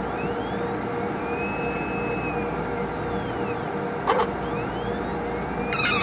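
HPLC autosampler sample pump running with a steady hum and faint squeaks that glide up and down in pitch. A sharp click about four seconds in, and a louder squeal near the end.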